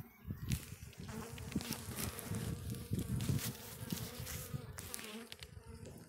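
A swarm of Russian honey bees buzzing steadily around a comb frame lifted out of the hive, close to the microphone, with scattered light clicks.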